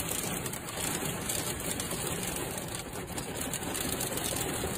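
Heavy rain and hail pelting a car, heard from inside the cabin as a steady hiss with dense small patters.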